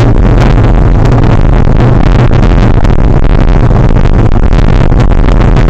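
Heavy wind buffeting on an action camera's microphone, a continuous low rumbling roar, mixed with frequent knocks and rattles from a mountain bike riding over a rough snowy dirt track.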